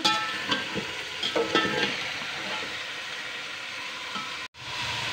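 Chicken pieces sizzling as they fry in hot oil in a metal pot, stirred with a metal slotted spatula that scrapes and clinks against the pot a few times in the first couple of seconds. The sound drops out for an instant about four and a half seconds in.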